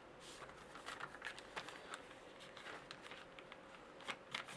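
A sheet of paper being folded and creased by hand: faint, irregular rustles and crinkles, with a few sharper crackles about four seconds in.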